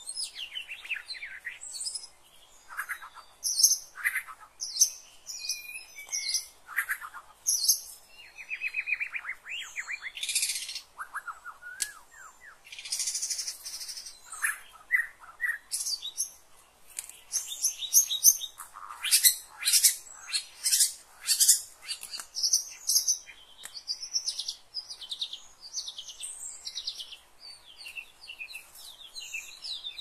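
Small forest songbirds calling: a busy run of sharp chirps, fast trills and whistled notes in quick succession, with a few harsh, buzzy calls.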